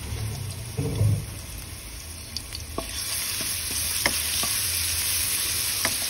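Crushed garlic sizzling in hot oil in a wok, growing louder after about three seconds once a spatula starts stirring it, with scattered clicks of the spatula against the pan. A low thump about a second in.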